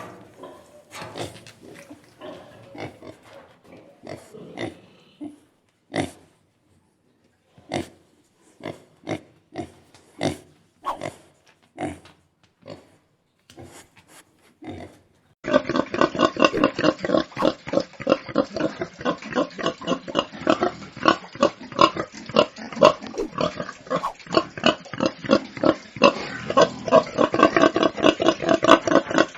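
Domestic pigs grunting: short separate grunts with pauses between them. About halfway through, an abrupt cut to a louder recording of many pigs grunting together, dense and without pause.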